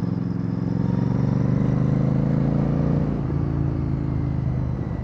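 Royal Enfield Bear 650's parallel-twin engine running through a Red Rooster Performance aftermarket exhaust while riding, steady, its note dropping a little about three seconds in.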